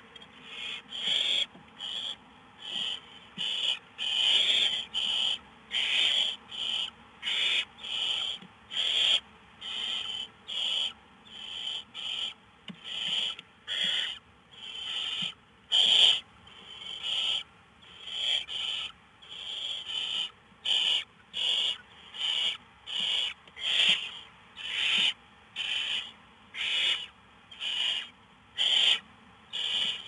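Barn owl nestlings giving their rasping, hissing begging calls, the 'snore' that owlets use to demand food. The calls come over and over, about one to two a second, short and breathy.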